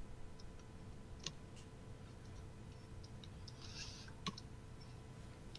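Faint clicks and ticks from computer input while handwriting on a digital whiteboard, with the sharpest about a second in and just after four seconds. They sit over quiet room noise and a faint steady hum.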